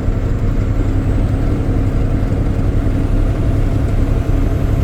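Steady low drone of a vehicle driving along the highway, engine and road noise without a break.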